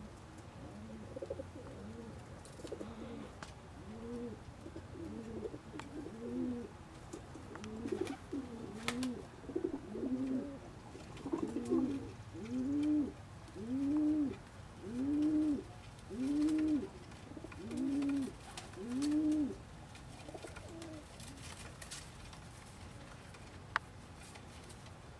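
Domestic pigeon cooing: a long series of rising-and-falling coos, about one a second, growing louder partway through and stopping about twenty seconds in. A single sharp click near the end.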